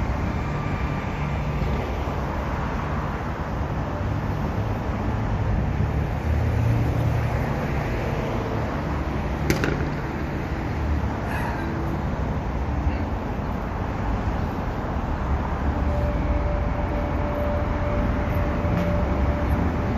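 City street traffic: a steady rumble of passing cars, with a sharp click about halfway through and a faint steady tone in the last few seconds.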